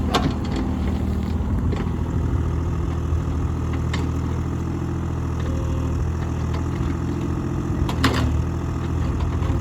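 Mini excavator engine running steadily, with sharp knocks just after the start and again about eight seconds in.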